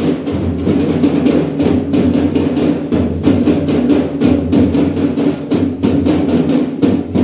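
Procession drums and cymbals playing a steady, driving beat, with a held droning note underneath.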